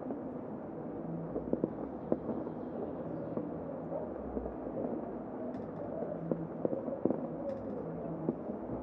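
Heavy rain falling: a steady, dull rush with irregular sharp taps and drips of drops striking nearby surfaces.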